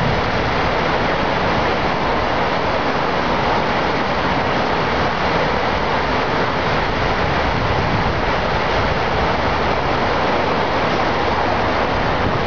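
A large volume of rushing water, a loud steady rush with no breaks.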